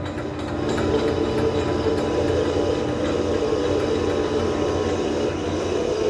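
Industrial K+G Wetter MAW D 114 mixer-grinder (9 kW, 114 mm plate) running with a steady mechanical hum and whir.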